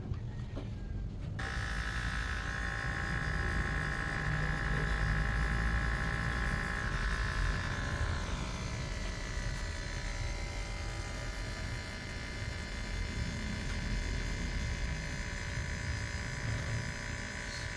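Water pump of a bottom-load bottled water dispenser switching on about a second in and running with a steady buzzing hum, drawing water up from the bottle; its tone shifts slightly about eight seconds in.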